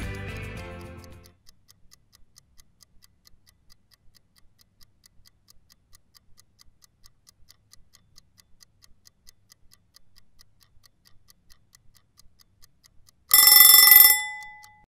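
Closing guitar music fades out in the first second. A faint, even clock-like ticking follows at about four ticks a second. Near the end a short, loud ringing chime strikes once and rings away.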